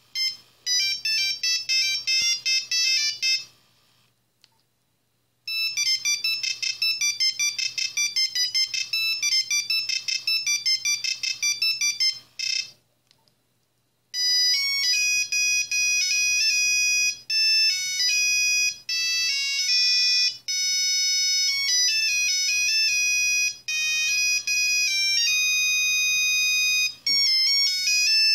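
Nokia 3310/3330 mobile phone playing its built-in monophonic ringtones one after another through its small speaker. Two quick melodies of short, rapid beeps, each stopping after a few seconds, are followed about fourteen seconds in by a third tune with longer held notes.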